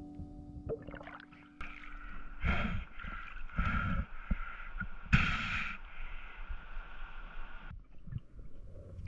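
Water heard by a camera in the sea: muffled sloshing and gurgling, with three short louder surges about two and a half, three and a half and five seconds in. The background cuts off sharply near the end.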